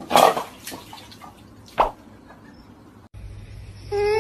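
Water splashing and plopping in a bowl as a husky puppy plays in it: two sharp splashes about a second and a half apart, with small drips between. Near the end a steady humming tone with overtones begins.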